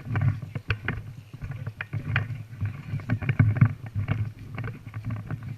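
Footsteps and rustling gear of an airsoft player on the move: a dense run of irregular crunches and knocks over a low rumble.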